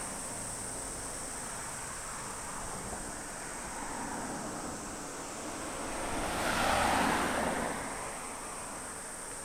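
A car passing on the road, swelling from about six seconds in, loudest about a second later and fading away, over a steady high-pitched insect trill.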